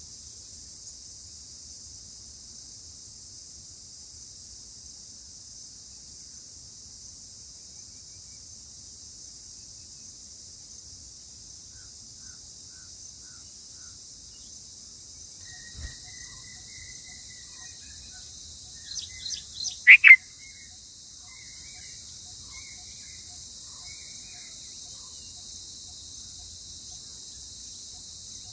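Insects give a steady high-pitched buzz throughout. Over it a bird chirps faintly now and then, then calls loudly with a quick run of sharp chirps about two-thirds of the way in. A single soft knock comes a little before the loud calls.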